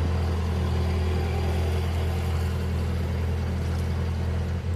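Narrowboat diesel engine running steadily at cruising speed, a low even drone.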